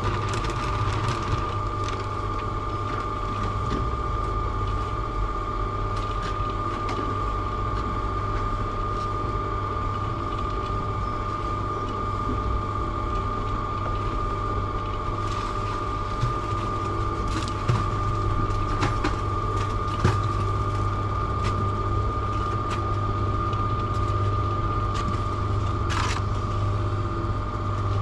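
Electric cement mixer running: a steady low motor hum with a constant high whine over it, and a few sharp knocks and clicks from the drum and its gearing.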